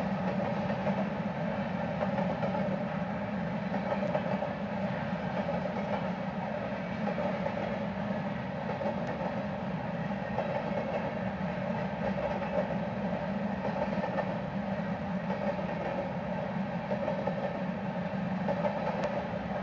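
Loaded grain hopper cars of a freight train rolling past, a steady rumble and rush of steel wheels on rail.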